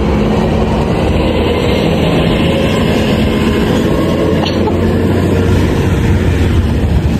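Loud, steady vehicle rumble with a low hum, as from heavy traffic or a train running close by.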